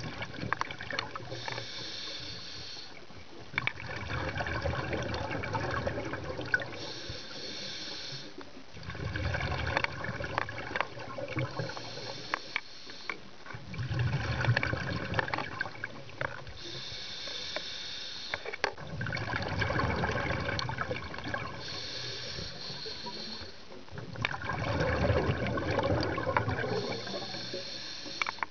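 Scuba diver breathing through a regulator underwater: six breath cycles, each a high hiss on the inhale followed by a longer bubbling and gurgling of exhaled air.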